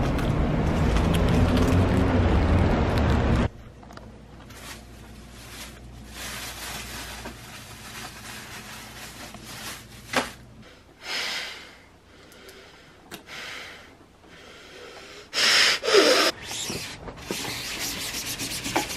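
Street traffic rumble that cuts off abruptly about three and a half seconds in, followed by scattered rubbing and scraping sounds with a brief louder burst near the end.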